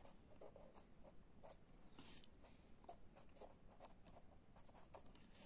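A pen writing on a pad of paper: faint, irregular short strokes.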